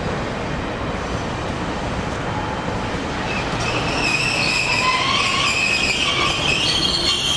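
Hiroden streetcar running slowly over curved track and points with a low rumble. About halfway through, its wheels start squealing in several high, wavering tones on the curve.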